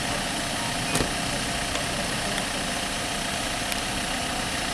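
Ambulance engines idling with a steady hum, and a single sharp click about a second in.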